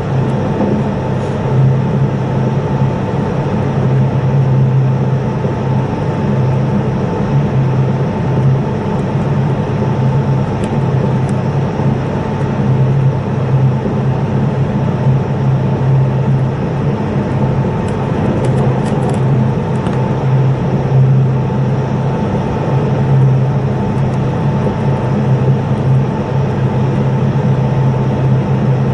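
Inside the cabin of a JR Hokkaido 789 series limited express electric train running at speed: a steady rumble with a strong low hum, and a few faint ticks.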